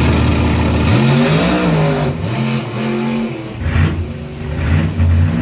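Supercharged alcohol-burning drag car, a 1995 Chevy Beretta doorslammer, running hard down the drag strip. The loud engine note cuts in suddenly and then rises and falls several times.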